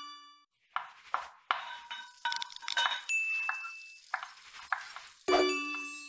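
Logo-animation sound effects of kitchen noises: a chime, then a run of clinks and clatters like dishes and utensils, a short steady high beep in the middle, and a louder ringing chime near the end.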